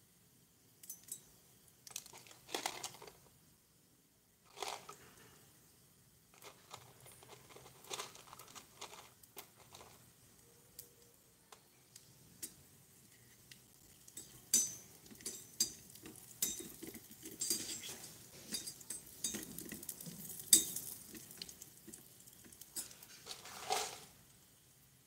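Small metal slotted spoon clinking and scraping against a miniature stainless steel pot while stirring onions and whole spices in oil, with a faint sizzle. The clinks come irregularly, sparse at first and busier in the second half.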